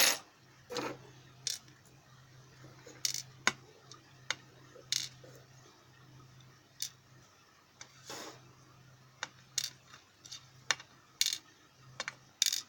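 Small metal lock parts and tools clicking and clinking against a parts tray, about a dozen sharp, irregular clicks, as a dimple-lock cylinder is taken apart. A faint steady low hum runs underneath.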